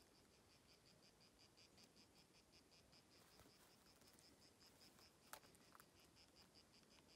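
Faint chirping of crickets: short high chirps repeating evenly, about five a second, with a single soft click about five seconds in.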